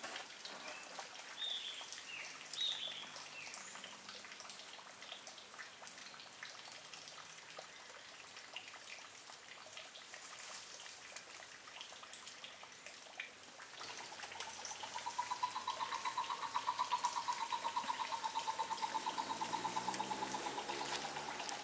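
Light splashing and dripping of water in a shallow pool where an orange-headed thrush is bathing, with a few short bird calls in the first three seconds. About two-thirds of the way in, an unseen animal starts a steady, fast-pulsed trill that becomes the loudest sound.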